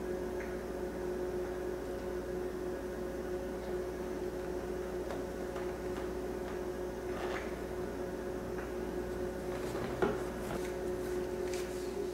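Faint handling of small brass pump-packing parts and a plastic dish-soap bottle: a few soft clicks, the sharpest about ten seconds in, over a steady hum.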